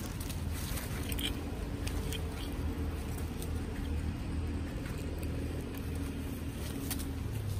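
A steady low hum runs through, with scattered light clicks and rustles as young macaques handle a small metal lid among dry leaves.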